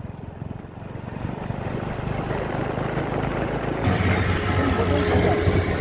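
Motorcycle riding along a highway, with engine and wind noise rising steadily. About four seconds in it changes to a deeper, louder engine running, the diesel of heavy earth-moving machinery such as a tracked excavator.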